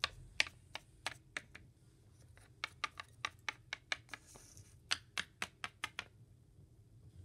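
Small plastic toy figurines clicking and tapping against a hard tabletop as a hand picks them up and moves them. The clicks are sharp and irregular: a few at first, a short pause about two seconds in, then a quicker run of them.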